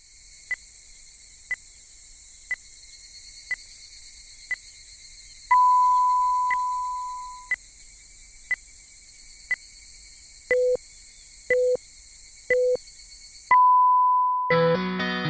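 Time-signal tones in the style of Japan's 117 telephone clock. A short tick sounds every second over a steady hiss, with a long higher tone about five seconds in. Then come three short lower pips a second apart and a long higher tone marking the exact time, after which guitar music starts near the end.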